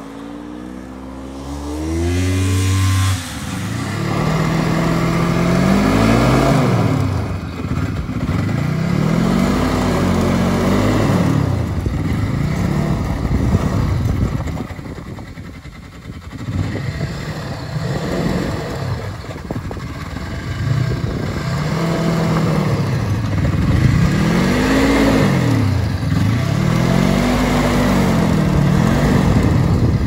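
Snowmobile engine revving up and easing off over and over, its pitch rising and falling every few seconds as the machine is ridden on the ice.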